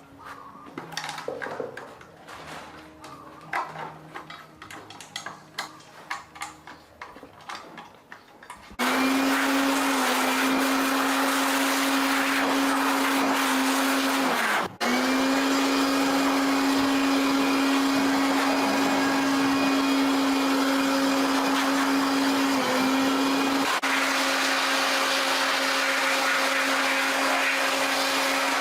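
Small clicks and knocks of parts being handled. About nine seconds in, a small electric motor starts and runs at a steady high speed with a constant hum. It stops for a moment about six seconds later, then restarts, its pitch dipping slightly now and then as if under light load.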